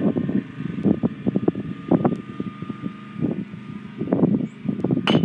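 A small vehicle engine running steadily, with gusts of wind buffeting the microphone. Near the end, a single sharp crack of a bat hitting a pitched baseball.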